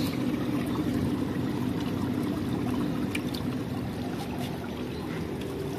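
Water pouring and splashing steadily into a goldfish tank from a filter return outlet, with a few faint drips and splashes.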